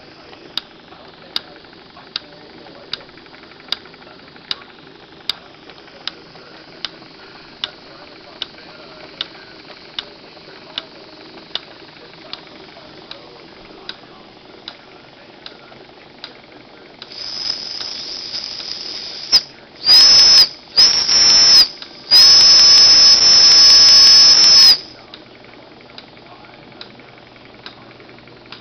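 Jensen #25 toy steam engine running a belt-driven miniature workshop: a light regular click a little more than once a second over a faint mechanical whir. Past the middle, a steam hiss, then three loud blasts of the engine's steam whistle, two short and one long.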